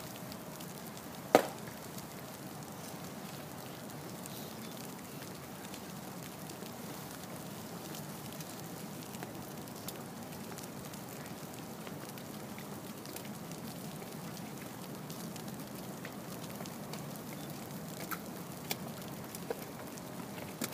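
Steady rain falling on umbrellas and wet stone. A single loud, sharp click about a second and a half in, and a few faint clicks near the end.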